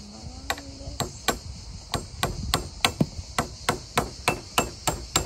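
Hammer driving nails into a wall of stacked logs: quick, evenly paced blows, about three to four a second, starting about a second in.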